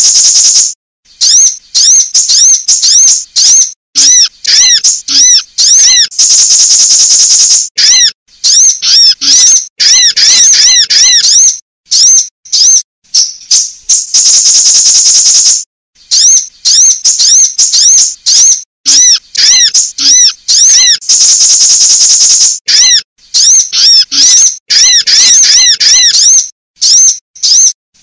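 Looped recording of sunbird calls used as a lure: fast runs of high, arched chirps alternate with a high buzzing trill about two seconds long. The sequence repeats roughly every seven to eight seconds and is loud, clipped playback.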